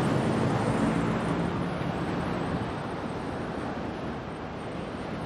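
Steady street traffic noise, with a passing vehicle's engine hum that fades over the first two or three seconds.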